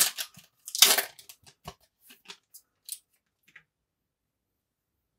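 Foil wrapper of a Topps Star Wars Holocron trading card pack being torn open: two loud rips about a second apart, then lighter crinkles and clicks as the cards are pulled out, dying away after three or four seconds.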